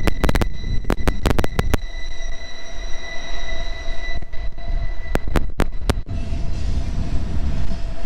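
A train rumbling past, with a high, steady wheel squeal and sharp metallic clicks. The squeal fades about four seconds in, leaving the rumble and a lower steady whine.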